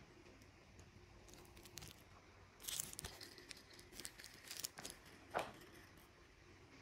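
Faint clicks and rustles from a wristwatch with a two-tone metal link bracelet being handled and turned over in the hand. A few come about three seconds in, and several more, ending in a short scrape, come between four and five and a half seconds in.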